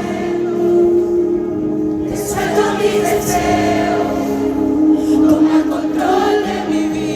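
A choir singing, several voices holding long, sustained notes together.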